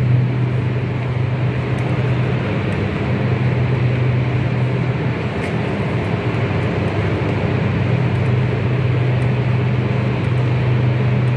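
Steady low mechanical hum under a broad rushing noise, the hum fading for a few seconds about halfway through: the machinery drone of an underground metro station.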